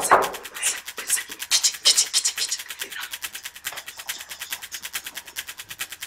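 Background music track carried by a rapid, even ticking, about ten ticks a second, with scratchy rubbing hisses over it for the first two and a half seconds.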